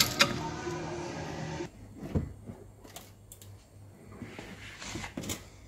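A sustained pitched sound, most likely background music, stops abruptly about a third of the way in. After that come a few scattered metallic clicks and knocks from a red clamp-on tool being handled on the front brake disc and wheel hub.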